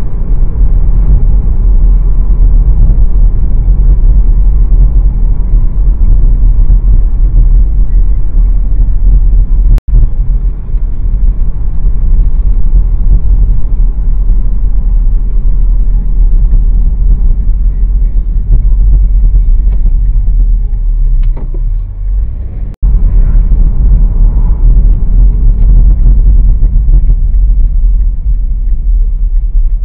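Steady low rumble of a car being driven, road and engine noise picked up inside the cabin by a dashcam microphone. The sound cuts out abruptly for an instant twice, about ten seconds in and about three-quarters of the way through.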